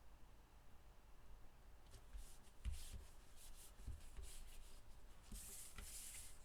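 Cardstock being handled and rubbed down on a work surface: soft papery rustling and scraping starting about two seconds in, with a couple of light taps, and a longer rub near the end.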